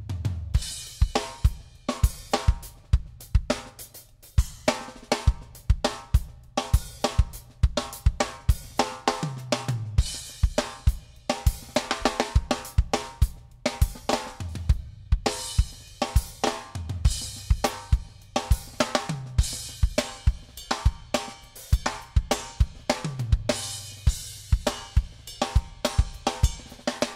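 Background music with a steady drum-kit beat (snare, hi-hat, cymbals and kick drum) over a bass line.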